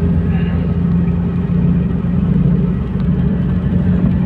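Steady low engine drone and road rumble heard from inside a moving vehicle, with a constant low hum.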